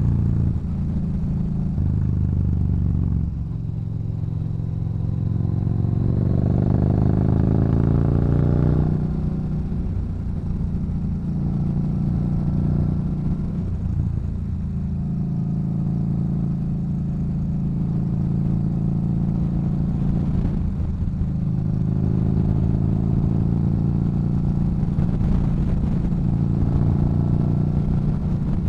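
Yamaha Bolt's air-cooled V-twin through an aftermarket Cobra exhaust, riding along. The revs climb steadily for about five seconds, drop about nine seconds in, and then settle into a steady cruise with a couple of brief dips in throttle.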